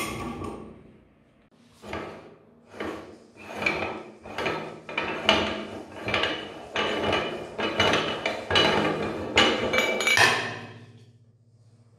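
Electric meat grinder's motor running down in the first second after being switched off, then a run of irregular metal clanks and knocks as the grinder's metal retaining ring and cutting plate are worked loose and taken off.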